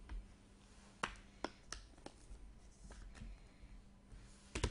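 A few short, sharp clicks and light handling noise from a trading card in a clear plastic holder being handled in the fingers, the loudest click near the end.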